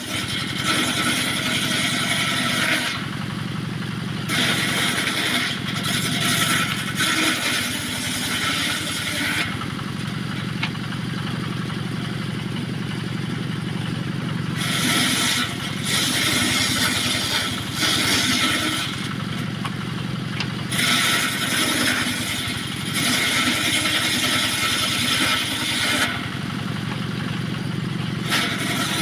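Engine-driven homemade circular saw rig running steadily while small pieces of teak are ripped into battens. The blade's cutting noise comes and goes in about five passes of a few seconds each over the engine's constant drone.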